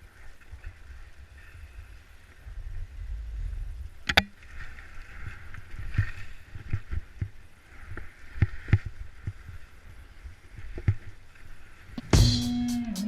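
Skis scraping and sliding over snow on a steep glade run, with wind rumbling on the camera microphone and sharp knocks, the loudest about four seconds in. A guitar-driven rock song starts abruptly near the end.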